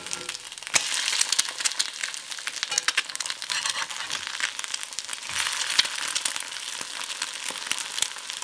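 Two eggs frying in hot lard in a cast iron skillet, sizzling steadily with many small sharp crackles and pops of spattering fat.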